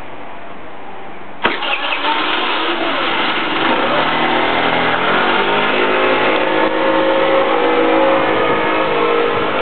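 Kymco Super 8 scooter engine starting suddenly about a second and a half in, then revving as the scooter pulls away, its pitch rising and then holding steady.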